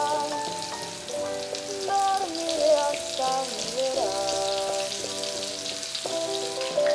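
Battered chicken pieces deep-frying in hot oil, a steady crackling sizzle, with background music playing over it.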